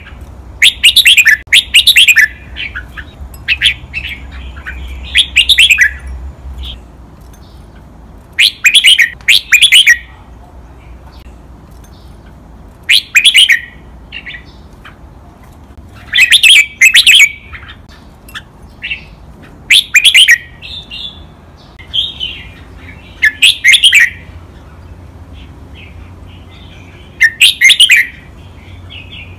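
Red-whiskered bulbul singing loud, short phrases of quick whistled notes. The phrases often come in close pairs and repeat every three to four seconds.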